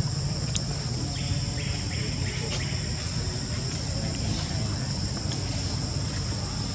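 Steady insect chorus in two high, even tones, over a low rumble, with a few faint clicks.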